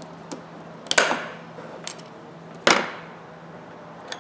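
A few sharp metal clicks as the snap ring is taken off a Craftsman ratchet head with snap-ring pliers and the parts are laid on the bench. The two loudest come about a second in and near three seconds.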